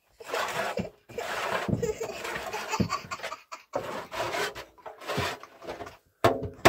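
Laughter, coming in a run of breathy bursts with short breaks between them.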